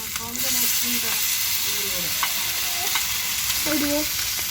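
Fish pieces sizzling in hot oil on a tawa, a dense steady hiss that gets louder about half a second in, with a few faint clicks.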